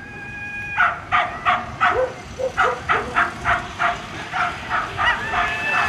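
Young Afghan hounds yelping in quick, repeated high yelps, about three a second, with drawn-out high whines at the start and near the end. These are eager sighthounds held at the start, wanting to be let go to chase.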